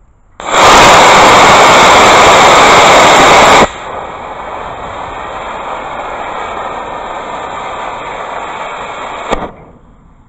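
Estes E12-6 black-powder model rocket motor firing on a static test stand. A loud rushing hiss of thrust starts about half a second in and lasts about three seconds, then cuts abruptly to a quieter steady hiss as the delay charge burns for nearly six seconds. Near the end there is a sharp pop as the ejection charge goes off.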